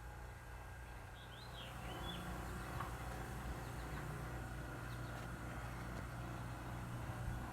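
A steady low hum, like an engine or machine running nearby, with a few short bird chirps about a second or two in.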